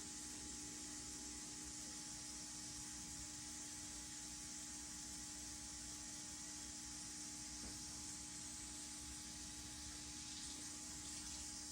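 Steady electrical hum with an even hiss behind it, unchanging throughout.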